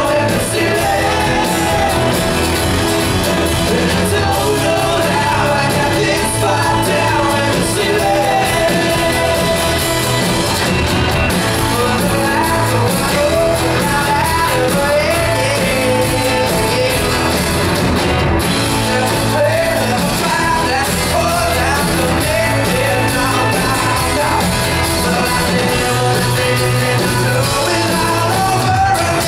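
Live rock band playing: a full drum kit driving the beat under the band, with a lead voice singing over it.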